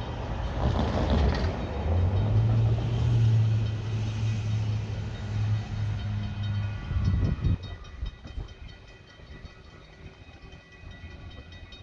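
Freight train's EMD diesel locomotives passing slowly at close range: a steady low engine drone, loud for the first seven seconds or so, then fading. After that a grade-crossing bell rings on, quieter, at an even pace.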